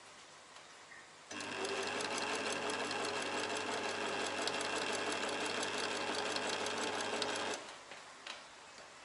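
An old Singer domestic sewing machine running steadily for about six seconds, its needle stitching in a fast even rhythm over the motor's hum. It starts about a second in and stops near the end, followed by a brief click.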